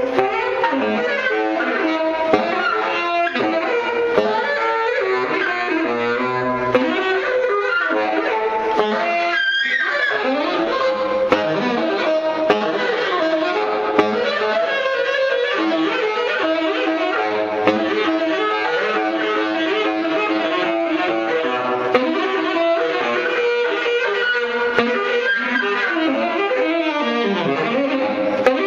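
Solo saxophone improvisation: the saxophone plays continuously, with several pitches sounding at once in a dense, shifting texture.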